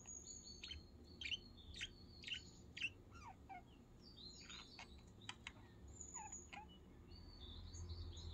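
Pet budgerigars chirping softly: a scattered run of short, quick chirps and little warbling squeaks.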